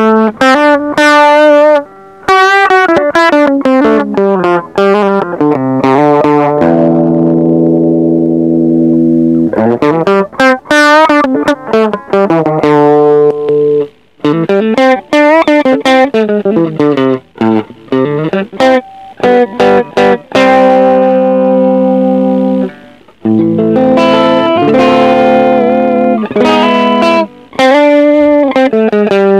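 Electric guitar played clean through an engaged TC Electronic HyperGravity mini compressor pedal: picked single-note runs and arpeggios, with a couple of chords left to ring. The compressor evens out the notes' level and makes each note's attack stand out.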